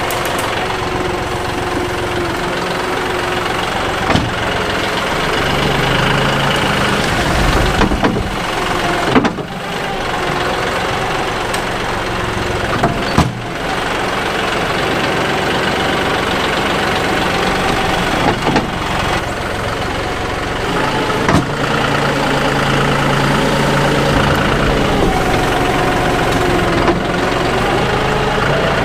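Diesel engine of a John Deere 5055E tractor running steadily while working dirt into a trench, its pitch rising and falling a little with the load, with a few sharp clunks along the way.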